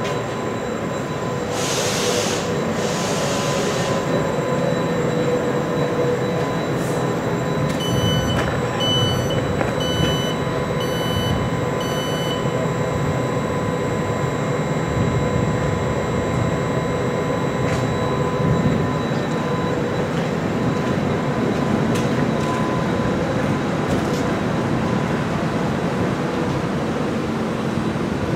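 A DB Class 1440 (Alstom Coradia Continental) electric multiple unit drawing into the platform and coming to a stop, with a steady rumble and the hum of its electrical equipment. A short hiss comes about two seconds in, and about a third of the way through there are five high electronic beeps, about one a second.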